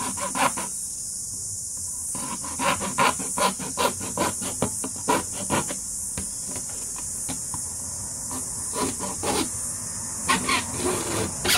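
Hacksaw cutting through the black polypropylene lid of a plastic rubbish bin: runs of quick back-and-forth rasping strokes that start about two seconds in, pause for a couple of seconds past the middle, then resume in shorter bursts near the end.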